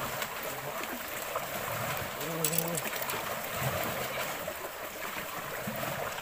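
Lake water lapping and washing against shoreline rocks, a steady wash, with a short voiced sound about two and a half seconds in.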